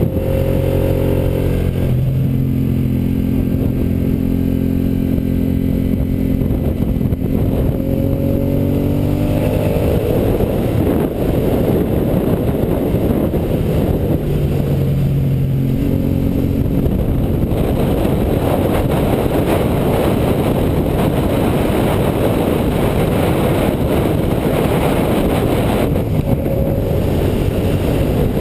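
Aprilia Caponord's V-twin engine under hard acceleration on track, its pitch climbing steadily for several seconds, dropping, then climbing again, with heavy wind rush on the microphone covering the engine through the second half.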